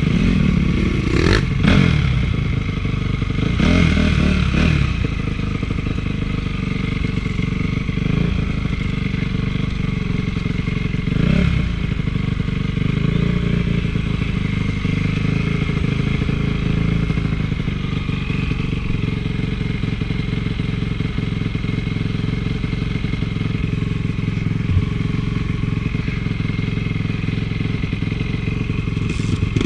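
Honda CRF450's single-cylinder four-stroke engine running, with a few short revs in the first dozen seconds, then holding a steady speed.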